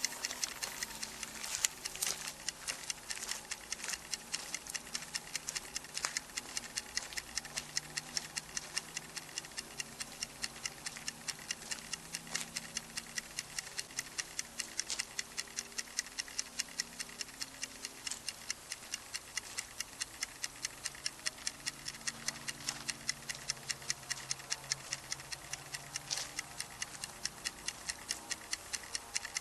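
Steady, rapid mechanical ticking, several evenly spaced clicks a second, over a faint low hum.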